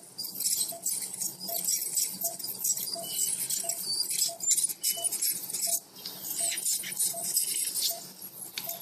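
Ultrasonic dental scaler hissing and crackling with its water spray as it works over a dog's teeth. Under it, an anesthesia monitor gives a short beep with each heartbeat, evenly about one and a half times a second.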